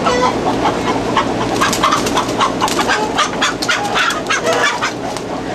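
Chickens clucking in a rapid, irregular run of short calls, thickest from about a second and a half in and thinning near the end.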